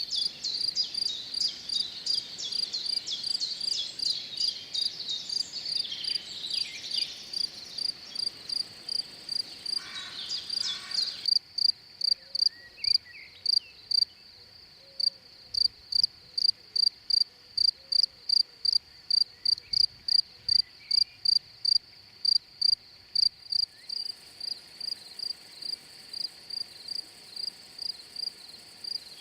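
A cricket chirping in a steady, even rhythm, about two high chirps a second. For the first eleven seconds other busier chirping overlaps it, then stops abruptly.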